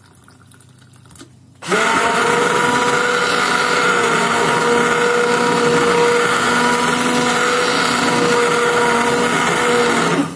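Electric stick blender running in a steel pot of lentil soup, pureeing it smooth. It switches on about two seconds in, runs with a steady motor hum, and cuts off near the end.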